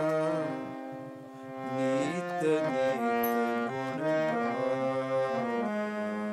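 Harmonium playing a melody, stepping from note to note over held reedy tones, and settling on a long held note near the end.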